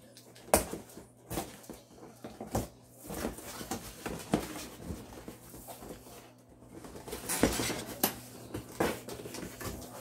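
Cardboard box being handled and opened, its top flap pulled and rustling, with a series of sharp knocks and scrapes, the loudest about half a second in and between about 7 and 9 seconds.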